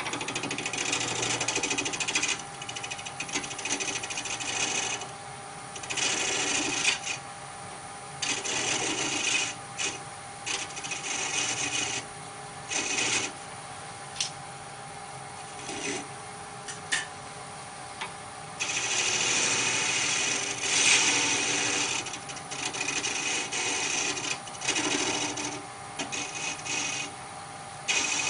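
Wood lathe running with a steady motor whine while a turning tool cuts the spinning knob blank in repeated short passes, each a hissing scrape lasting one to a few seconds; the longest cut comes a little past halfway.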